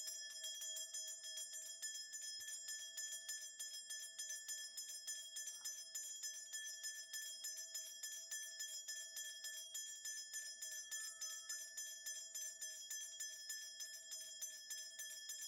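A Korean shaman's bell rattle (mugu bangul) shaken steadily and quietly, a fast run of small jingles over a sustained metallic ring. It is shaken to call the spirits as the divination begins.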